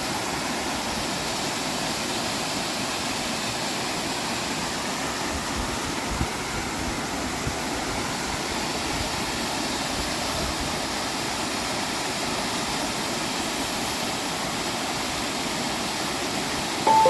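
Small waterfall on a rocky woodland brook, the water falling and rushing in a steady, unbroken hiss.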